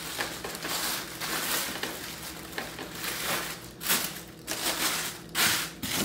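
Thin white wrapping crinkling and rustling as it is pulled by hand off a large plastic action figure, in uneven bursts with a few louder rustles in the second half.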